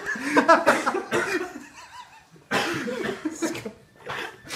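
Laughter with bits of talk, breaking off briefly about halfway through.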